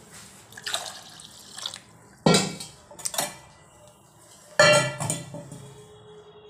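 Steel cooking pots knocking against each other and the stovetop as they are handled for washing. Two loud clanks ring on, about two seconds apart, with lighter knocks between them and some water sloshing in a pot.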